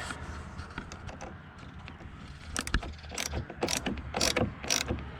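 Socket wrench ratchet clicking as a battery terminal clamp is tightened: faint ticks at first, then a run of sharper clicks about two a second from about halfway through.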